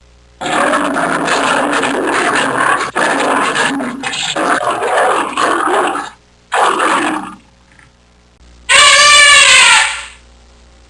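An animal growling or roaring in a long rough stretch, then once more briefly, followed about nine seconds in by a different, louder, clearly pitched call lasting just over a second.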